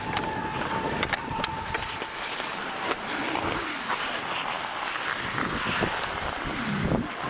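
Ice hockey skate blades scraping and carving on the ice, with sharp clicks of stick on puck in the first couple of seconds.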